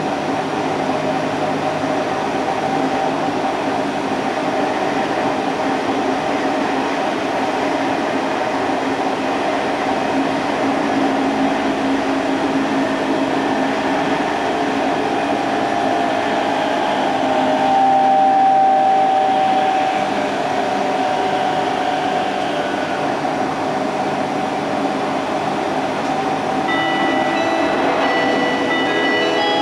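Odakyu 30000 series EXE Romancecar express train running, heard from the vestibule deck: steady rail and running noise with the hum of its traction equipment, and the onboard shop's refrigerator running. Near the end several steady whining tones come in.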